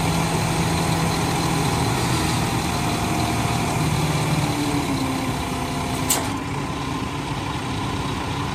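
Scania P360 hooklift truck's diesel engine running while the hydraulic hook arm folds in, with steady tones over the engine rumble that shift lower about halfway through. A short sharp click comes about six seconds in.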